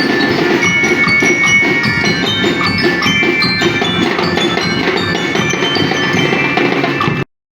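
Dense, continuous bell-like and wood-block percussion, many quick ringing strikes overlapping, cutting off suddenly near the end.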